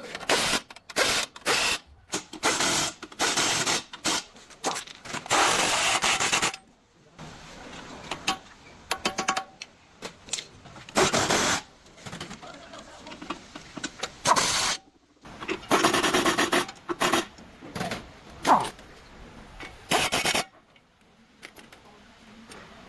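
Hand tools rubbing and scraping in a long series of irregular strokes, each lasting from a fraction of a second to about a second and a half, with short pauses between.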